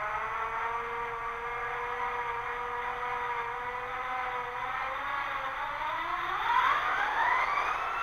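An HO-scale EMD SD40-2 model locomotive's ESU sound decoder playing diesel prime mover sound through its speaker. The engine holds a steady idle, then from about five and a half seconds in revs up with a rising whine.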